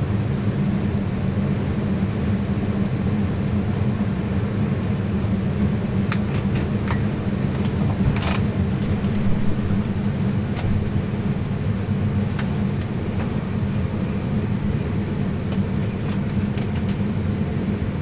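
Steady low hum of a cold-room refrigeration unit running, with scattered light clicks and knocks from handling, the sharpest about eight seconds in.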